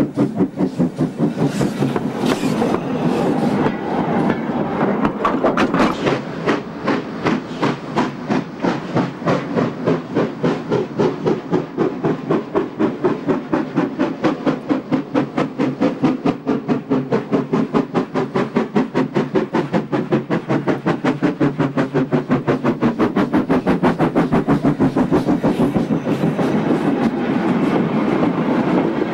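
GWR pannier tank steam locomotive working hard with a goods train: a quick, even chuffing of exhaust beats, several a second. Near the end the wagons rattle past over the rails.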